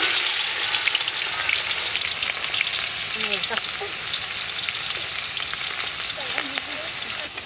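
Chopped onions frying in hot oil in a large metal wok, a steady sizzle with fine crackling. It is loudest just as they hit the oil and eases a little as they cook.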